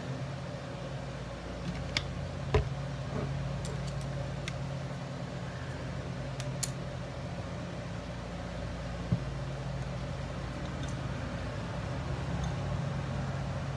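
A steady low mechanical hum, with a few sharp light clicks and taps from measuring cups being handled while thick acrylic paint is poured.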